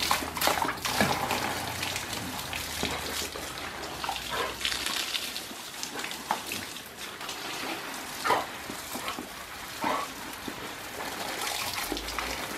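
Garden hose spray pattering steadily onto a wet brick patio and onto dogs, with several short, sharp splashes as the dogs snap and bite at the stream.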